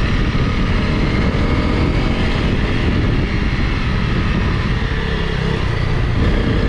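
Honda CRF Rally single-cylinder motorcycle engine running steadily while riding off-road, over a dense low rumble.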